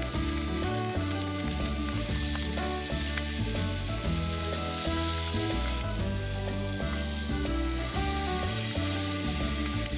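Food frying in a hot pan, with a steady sizzle, over background music whose low notes change every half second or so.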